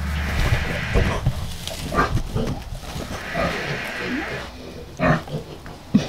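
A sow grunting in short, irregular grunts while farrowing, with a few sharp rustles mixed in.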